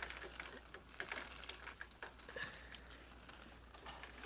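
Water pouring faintly from a watering jug onto potting mix, with a few light clicks.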